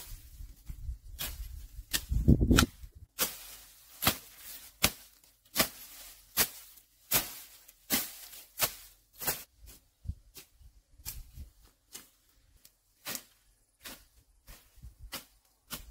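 Bamboo being chopped with a blade: a run of sharp, cracking strikes a little more than one a second, growing sparser and lighter in the second half.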